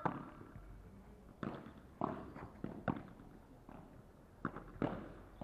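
Padel ball being hit with solid paddles and bouncing during a rally: a series of about seven sharp knocks at uneven intervals.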